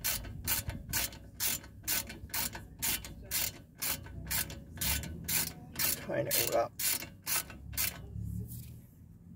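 Hand ratchet driving a 7 mm hex bit, clicking on each back-swing about twice a second while tightening a front brake caliper bolt. The clicking stops about eight seconds in.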